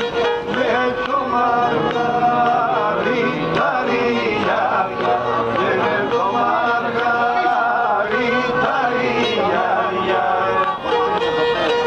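Pontic lyra (kemençe) bowed in a Greek Pontic folk tune, with held notes sounding against the melody and a man singing along.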